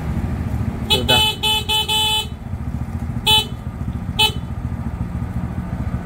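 Newly fitted horn on a Suzuki Shogun motorcycle being tested: a quick run of short toots about a second in, then two more single toots, showing that the horn works again after the old one had failed.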